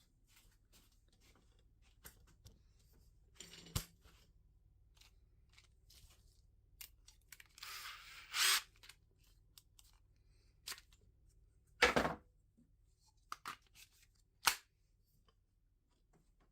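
Objects being handled on a workbench: scattered light clicks and knocks, a short rustling scrape about eight seconds in, and sharper knocks about four, twelve and fourteen and a half seconds in, the one near twelve seconds the loudest.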